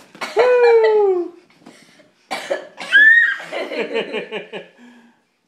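A voice calls a long, loud "Woo!" that falls in pitch, about half a second in. A couple of seconds later come short, broken vocal sounds and a brief high squeal.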